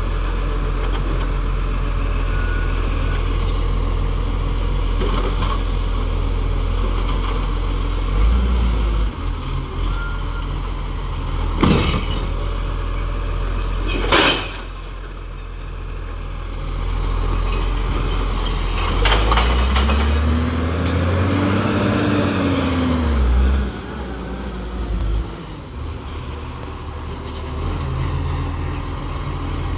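Side-loader recycling truck's diesel engine running while its automated arm lifts and tips a wheelie bin. There is a sharp knock about twelve seconds in and a short, loud hiss about two seconds later. Later the engine revs up and falls back as the truck moves off along the street.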